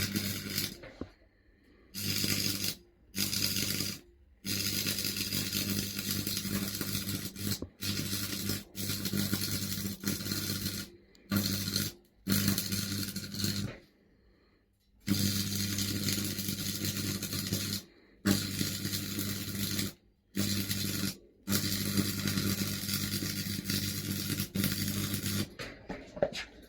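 Stick (MMA) welding arc crackling and hissing over the buzz of an old AC transformer welder, breaking off and restarting again and again. The arc keeps dropping out because the old transformer is struggling.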